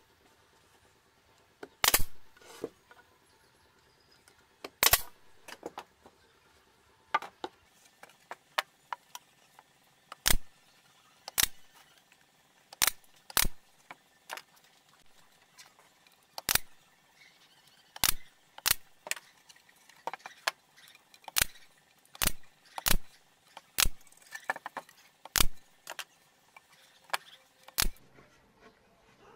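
A series of sharp single knocks on wood at irregular intervals, roughly one every second or two, from handling and working a carved wooden panel in its frame.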